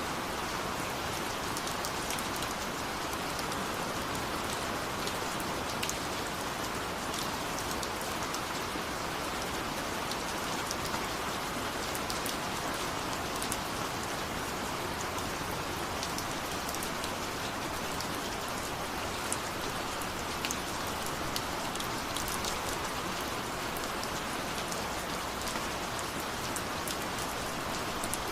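Steady rain falling, an even hiss with many small sharp drop ticks, with no thunder.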